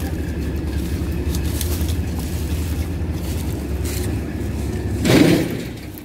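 Combine harvester's diesel engine running steadily, heard as a low rumble. About five seconds in there is a short, loud rush of noise.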